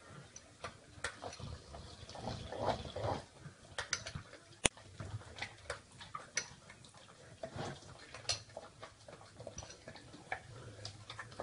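A dog eating cereal: irregular crunching and clicking from its chewing, with one sharp click about five seconds in.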